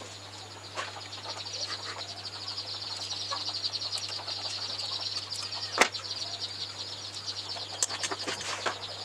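A few sharp clicks and light knocks as wires and the TV chassis are handled, the loudest about six seconds in. Underneath runs a continuous fast, high-pitched pulsing chirr and a steady low hum.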